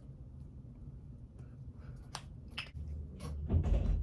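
Short scratchy strokes of a small edge brush through hair, a few separate strokes, then a louder rustle with a low bump near the end.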